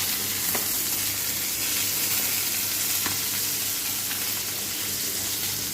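Small sea chapila fish shallow-frying in hot oil in a pan: a steady sizzle, with a couple of faint clicks, still cooking toward crisp on a lowered medium flame.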